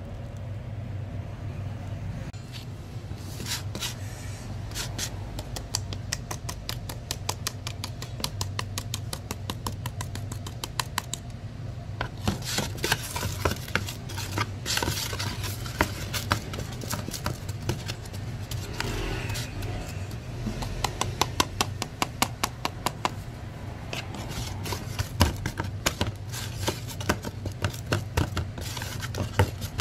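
A perforated metal spatula scraping and tapping against a tray as a fried hotteok is pressed and dragged through seasoning powder, in quick runs of clicks that come thicker about halfway through and again near the end. A steady low hum runs underneath.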